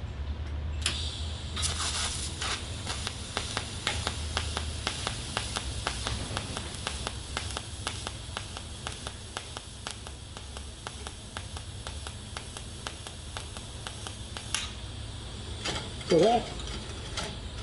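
Pulsed DC TIG welding arc from a Miller Multimatic 255 set to two pulses a second: struck about a second in, it gives a steady hiss with a fast, regular crackle for about fourteen seconds, then cuts off sharply.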